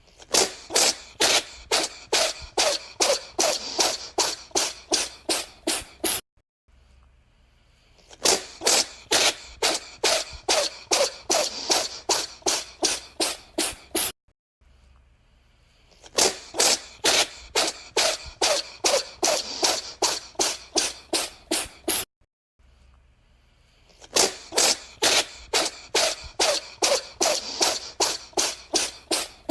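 A cat sneezing in quick fits of about fifteen short, sharp sneezes, two to three a second. Each fit lasts about six seconds and is followed by a short pause, and the same fit repeats every eight seconds.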